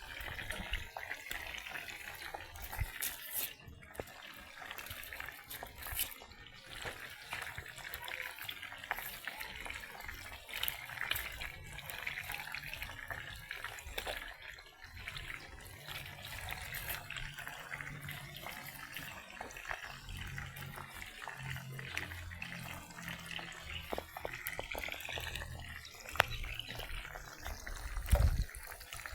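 Water running and splashing, as when food or dishes are washed under a tap or in a basin, with scattered clicks and a few knocks of things being handled.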